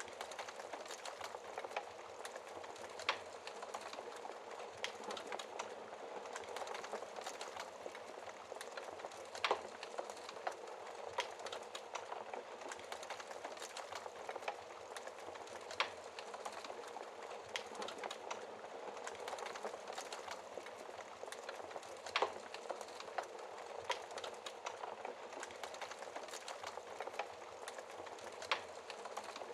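Fire burning in a fireplace, crackling: a steady hiss with irregular small snaps and a sharper pop every few seconds.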